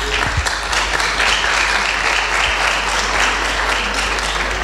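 Audience applauding, swelling over the first second and tapering off near the end: the welcome for a panelist who has just been introduced.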